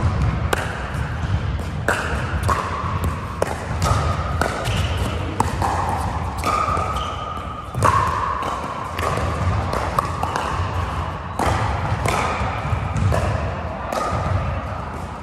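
Pickleball paddles hitting the plastic ball and the ball bouncing on an indoor hard court, from several games at once: a steady, irregular run of sharp pops, often more than one a second.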